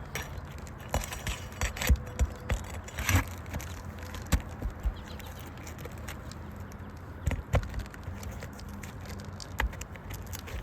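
Flat pry bar working under asphalt roof shingles to break their seal and pull the nails: scattered sharp clicks, knocks and scrapes, closer together in the first few seconds.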